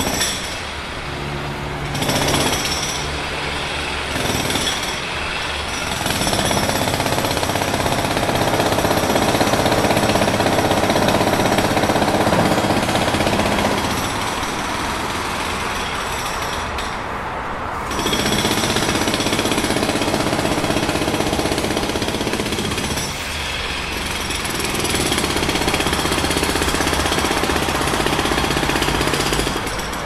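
Jackhammer hammering rapidly in several long bursts, easing off briefly between them.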